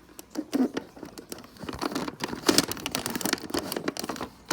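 Irregular light clicks and rustling of a plastic baby crib mobile being handled.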